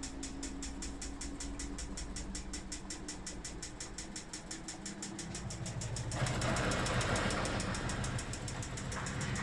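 Haier HWD80 washing machine running with a rapid, regular knocking from inside as the drum turns, over a low motor hum. About six seconds in the knocking quickens and the machine gets louder. The owner wonders whether a zipper has caught somewhere in the drum.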